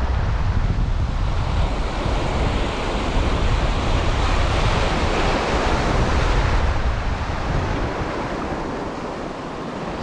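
Surf washing and foaming over a rocky shore reef, with wind buffeting the microphone in a low rumble. The wash swells about halfway through and eases near the end.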